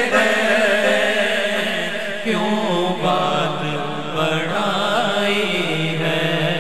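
Male naat reciter singing a long, drawn-out melismatic phrase of an Urdu devotional poem, his voice gliding up and down through held notes, over a steady low drone.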